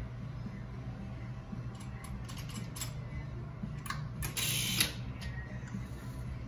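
Atlas Orthogonal adjusting instrument working at the patient's neck: a few light mechanical clicks, then a short ratcheting burst about four and a half seconds in that ends in a sharp click. A steady low hum runs underneath.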